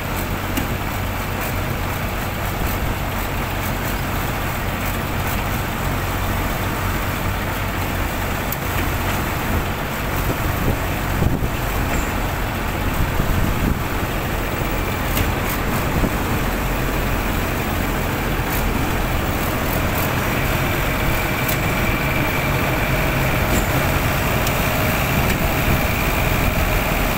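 Winch truck engine running steadily under load while its winch pulls a sunken boat ashore on a steel cable, with a few brief clicks near the middle. A faint steady whine joins in about two-thirds of the way through.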